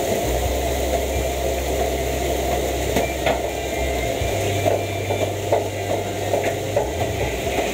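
Gas wok burner running: a steady rushing with a low hum underneath and a few light clicks and knocks.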